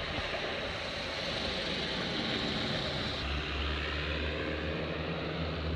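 Single-engine floatplane at takeoff power, a steady distant engine drone as it runs across the water on its floats and climbs away.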